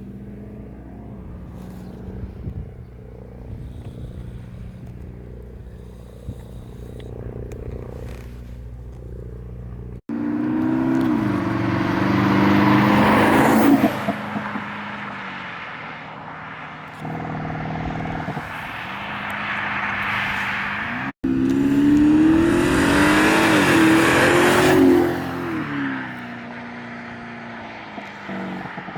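Audi A6/A7 (4G) with an aftermarket active sound module playing a synthetic V8 engine note: a steady idle, then two loud revs whose pitch rises and falls, with crackling pops as the revs come down.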